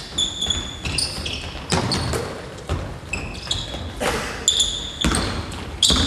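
Basketball players' sneakers squeaking in short high chirps on a hardwood gym floor, mixed with a basketball bouncing and footfalls as players move through a drill.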